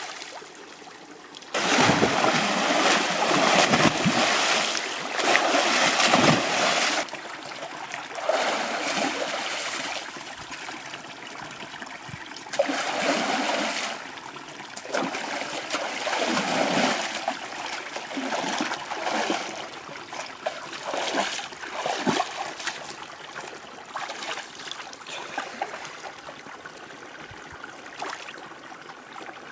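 A person wading in a shallow, muddy stream, scooping and throwing water over himself: repeated bursts of splashing, heaviest over the first several seconds, then shorter, smaller splashes that thin out toward the end.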